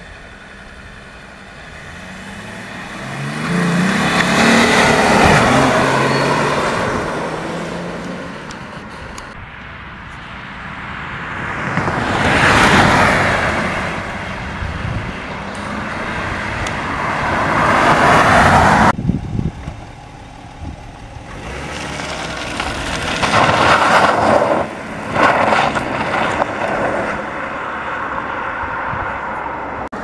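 BMW E39 525d's straight-six turbodiesel engine on its stock exhaust, the car driving past several times, each pass swelling and fading away. One pass cuts off suddenly about nineteen seconds in.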